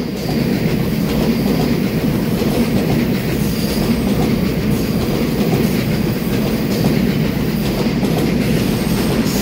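Taiwan Railways EMU3000 electric multiple unit passing at close range: a steady, loud rumble of its wheels running on the rails.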